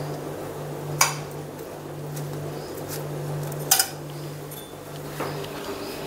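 A white ceramic plate clinking as hands arrange pancakes on it: two sharp clinks about a second in and just before four seconds, and a fainter one about five seconds in, over a steady low hum.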